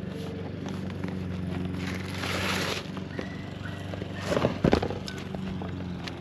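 Self-adhesive tar roofing membrane being handled and laid: a rustling, tearing swell about two seconds in as the backing is peeled, then a few sharp knocks as it is pressed down. A steady low hum runs underneath.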